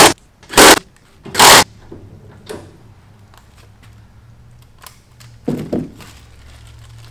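Cordless quarter-inch impact driver hammering in three short bursts within the first second and a half, running 13 mm bolts into a caster. A softer thump comes about five and a half seconds in.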